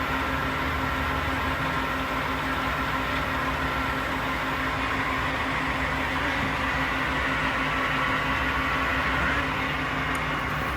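Doosan 240M CNC turning center running steadily: an even hum with a constant whine over it.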